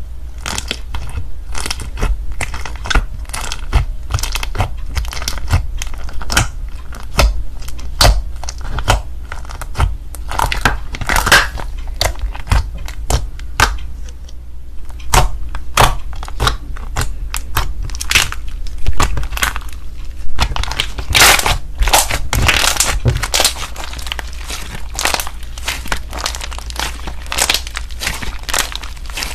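Thick cream-coloured slime studded with round white beads being pressed, squished and stretched by hand, giving rapid, irregular sticky clicks and crackles.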